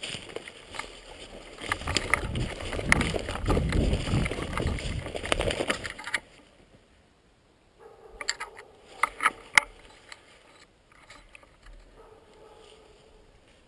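Rumbling wind and handling noise on a rifle-mounted camera as the gun is moved, loud for about six seconds and then much quieter. A few sharp knocks and clicks come about eight to ten seconds in.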